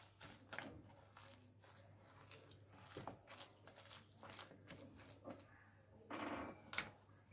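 A hand mixing a thick, coarse lentil batter with grated radish in a stainless steel bowl: faint, irregular squelching and scraping. A brief louder sound comes about six seconds in.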